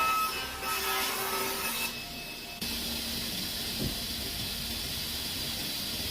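A brief whining, rubbing sound of a workshop tool, then a steady hiss that starts abruptly about two and a half seconds in and runs on evenly.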